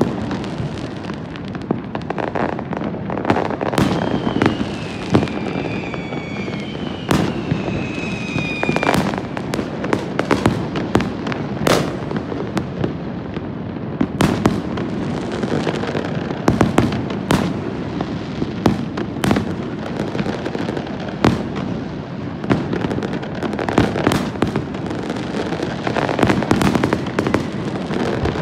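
Many fireworks going off at once across a city: continual crackling and popping with frequent sharp bangs. Two falling whistles sound between about four and nine seconds in.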